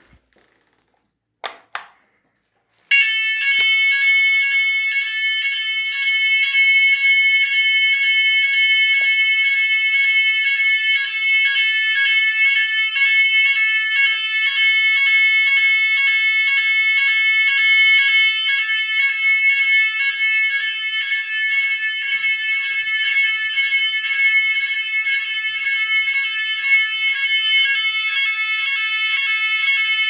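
Finsécur Buccin electronic fire-alarm sounder giving the general evacuation signal of a type 4 fire alarm: a loud, rapidly pulsing electronic tone that starts abruptly about three seconds in and sounds without a break. Two brief knocks come just before it starts.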